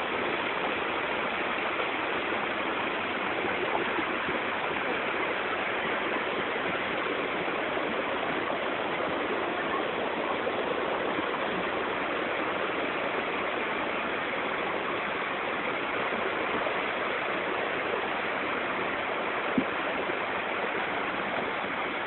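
Rainforest waterfall: a steady, unbroken rush of falling water, with one brief click near the end.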